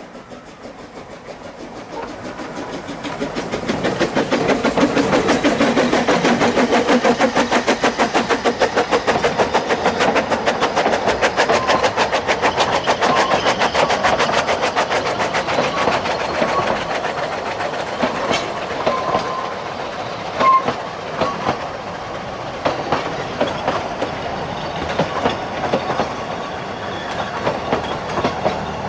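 Narrow-gauge steam locomotive pulling a train past close by: a rapid, even beat of exhaust chuffs builds over the first few seconds. Its carriages then roll past with wheels clicking over the rail joints and a few short squeals.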